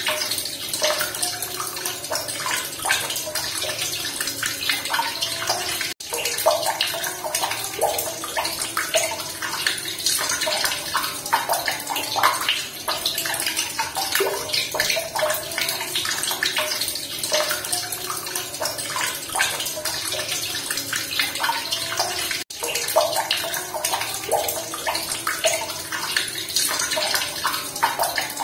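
Running water splashing and bubbling steadily, close up, full of small gurgling blips. The sound cuts out for an instant twice, about six and twenty-two seconds in.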